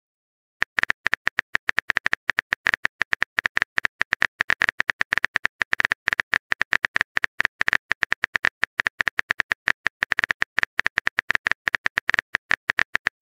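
Keyboard typing sound effect of a texting-story app: a rapid, even run of short clicks, one per letter, starting about half a second in.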